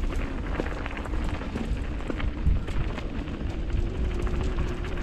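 Mountain bike riding fast down a dirt trail: a steady rumble of wind buffeting the microphone, with tyres crunching over dirt and small stones and the bike rattling and clicking over bumps.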